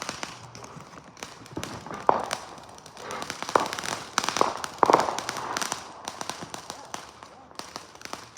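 Consumer fireworks going off: a string of sharp bangs a second or so apart, then rapid small crackling pops near the end.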